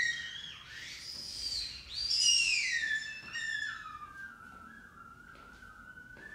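Experimental improvised music for trumpet and electronics: high, whistle-like tones sliding up and down in pitch, then settling into a thin, wavering held tone about halfway through.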